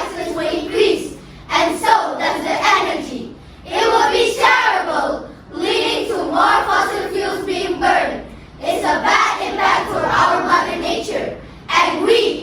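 A group of young voices chanting together in unison, in short phrases with brief breaks between them.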